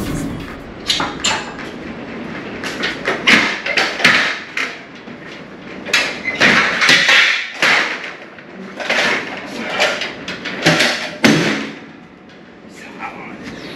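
Irregular knocks, thumps and clattering, some sharp, coming every second or two, with a quieter stretch near the end.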